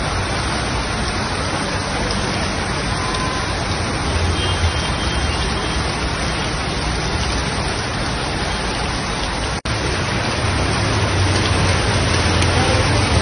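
Heavy rain pouring down in a steady, loud hiss over a low rumble. The sound breaks off for an instant about ten seconds in.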